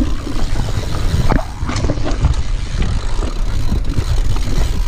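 Mountain bike rolling fast over a dirt trail, heard through a chest-mounted action camera: a constant rumble of tyre noise and wind on the microphone, with scattered knocks and rattles from the bike over bumps.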